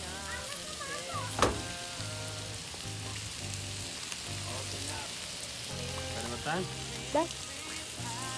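Steaks sizzling on a grill sheet over hot charcoal as avocado oil is brushed onto them. Two sharp clacks cut through, the louder about a second and a half in and another about seven seconds in.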